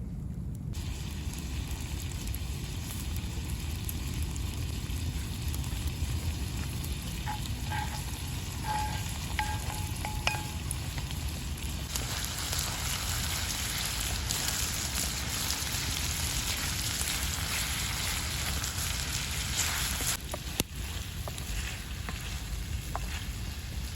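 Food frying and sizzling in a hot saj pan over a fire. The sizzle grows louder about halfway through and eases off near the end, with a couple of sharp clicks.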